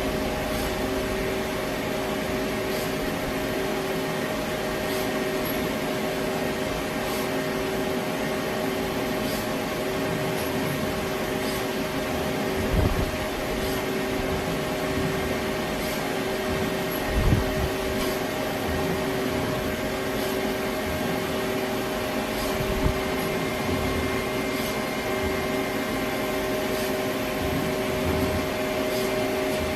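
Multi-tasking CNC lathe running steadily at work on a steel part, a constant machine hum holding two steady tones, with faint ticks about every two seconds and a few dull thumps around the middle.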